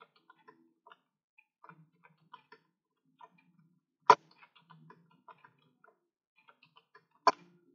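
Computer keyboard being typed on: faint, scattered key taps, with two sharper clicks about four seconds in and near the end.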